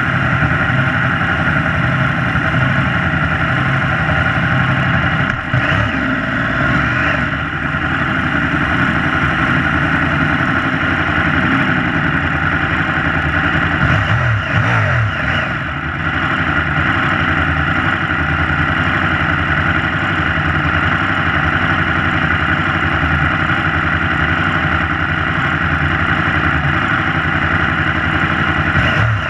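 Yamaha YZF-R1 (RN32) inline-four idling steadily, heard close from a camera mounted on the bike, with a brief rise and fall in engine pitch about halfway through.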